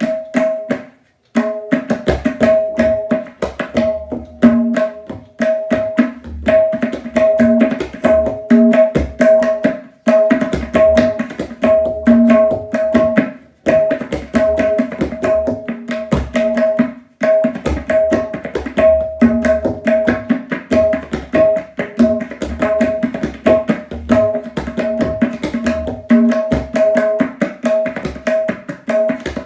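Solo tabla playing teentaal with a qaida and its paltas. Fast, even strokes ring at one pitch on the tuned right-hand drum, with deeper strokes on the left-hand bass drum and a few brief breaks in the phrasing.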